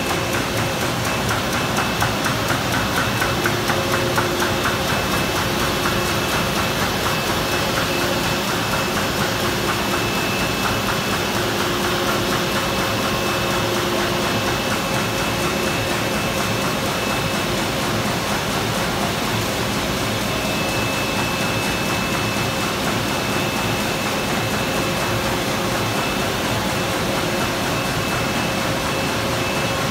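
Sheetfed offset printing press machinery running: a steady mechanical din with a fast, even clatter and a couple of steady whining tones.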